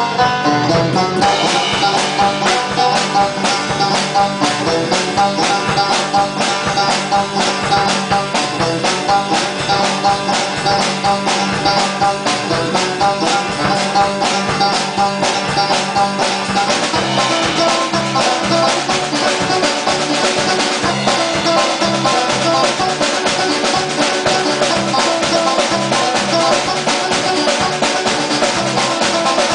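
Live guitar music: acoustic and electric guitars strummed together in a brisk, steady rhythm.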